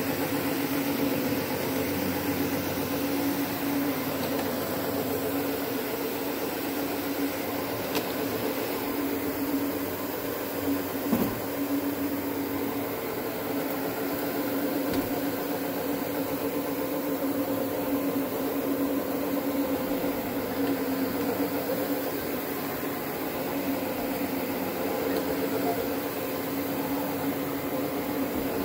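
Electric counter-rotating brush carpet-cleaning machine running steadily, its motor humming while its two brushes scrub the carpet pile, with a brief knock about eleven seconds in.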